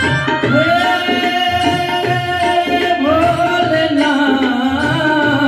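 Bhajan music on a Roland XPS-10 keyboard: a looped drum rhythm of low, regular beats under a melody of long held notes that slide up into pitch.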